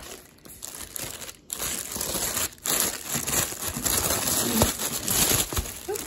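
Thin clear plastic poly bag crinkling as it is handled and pulled off a pink purse, growing louder and continuous about a second and a half in.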